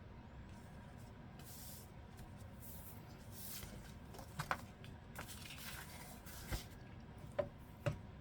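Quiet handling sounds at a craft table: faint brushing rustles, then a few short light taps or clicks in the second half.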